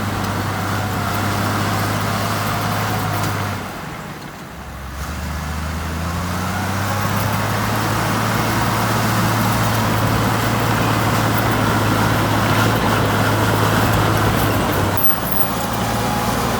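Heavy diesel engine of earthmoving machinery running steadily. About four seconds in the sound drops away briefly, then comes back with the engine note rising over a couple of seconds and holding steady.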